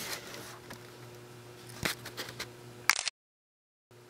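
Faint handling rustle from a handheld camera, with two sharp clicks and a faint steady hum beneath. About three seconds in the sound drops out to dead silence for nearly a second, where the recording is cut.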